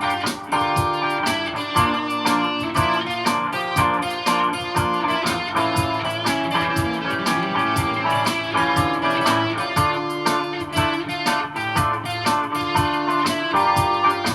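Godin guitar playing jazz over live-looped layers: plucked notes and chords over a low bass line and a steady percussive pulse.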